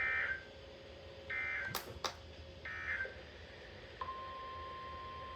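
NOAA Weather Radio EAS signalling: three short warbling SAME data bursts, about a second and a half apart, marking the end of the warning message, with two sharp clicks between them. About four seconds in, a steady single-pitch alert tone of roughly 1050 Hz starts and holds.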